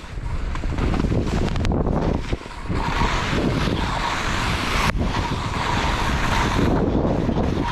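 Heavy wind buffeting the microphone with a steady rushing, along with skis running over snow on a downhill run.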